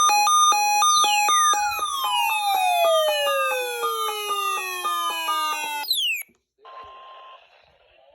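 Electronic alert sound: two tones alternating high and low like a siren, with a long falling sweep, stopping abruptly about six seconds in. After a brief silence comes a short steady tone over radio hiss, then faint hiss.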